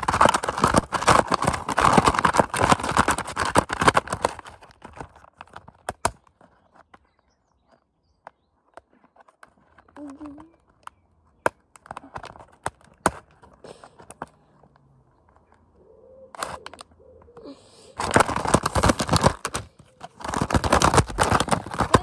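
Thin, cracked clear plastic bucket with a stone inside being handled and rattled, crinkling and crackling. It comes in two dense spells, about four seconds at the start and again from about eighteen seconds in, with scattered clicks and taps between.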